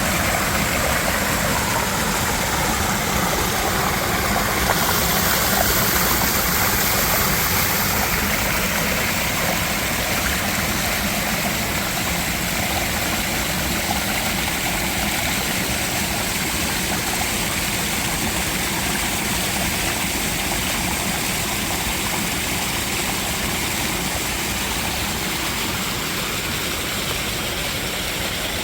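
Mountain valley stream running steadily, an even rushing of water, with a brighter hiss for a few seconds about five seconds in.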